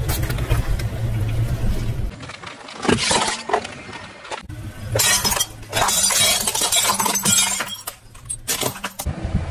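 Car tyres rolling over objects on asphalt. A low rumble comes first, then a sharp crunch near the three-second mark. From about five seconds in there are two or three seconds of glass crackling and shattering as a tyre crushes it.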